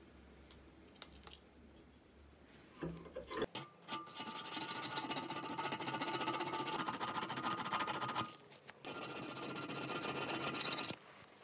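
Flat hand file rasping across the steel jaws of a pair of pliers clamped in a vise, filing down marks and defects left in the surface. A couple of light clicks come first; the filing starts about three and a half seconds in, pauses briefly, resumes, and stops suddenly just before the end.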